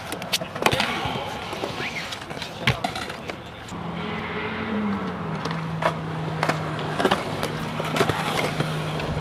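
Kick-scooter wheels rolling on concrete skatepark ramps, with repeated sharp clacks and knocks from landings and the deck striking the concrete. A steady low hum comes in a few seconds in and continues.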